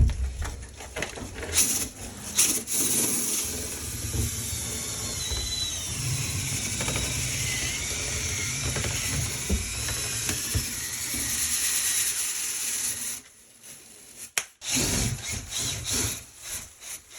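Power drill spinning a rotary dryer vent brush inside the duct: a steady whir with scraping as lint is knocked loose, its pitch wavering. It stops about thirteen seconds in, followed by a few knocks and rattles.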